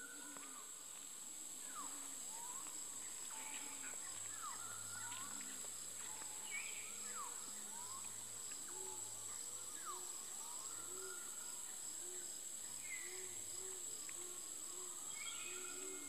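Tropical forest chorus: a steady high-pitched insect drone under many short bird whistles and down-slurred calls, with a low hooting note repeated about twice a second through the second half. A new, louder call starts near the end.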